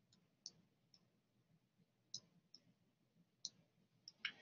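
Near silence broken by about eight short, faint clicks, scattered and a little louder near the end, from the pen input used to hand-write on an on-screen lecture slide.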